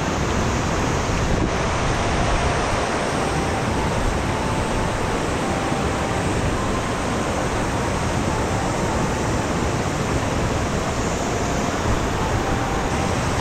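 Shallow river rushing over a rocky riffle: a steady hiss of moving water.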